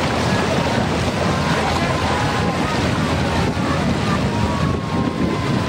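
Motor launch running along the river at speed, with wind buffeting the microphone and water rushing past the hull. A faint steady whine runs under the noise.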